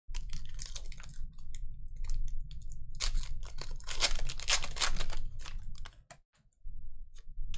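Foil wrapper of a Pokémon booster pack crinkling as it is handled and torn open. The dense crackle is loudest from about three to five seconds in, with a softer rustle near the end as the cards come out.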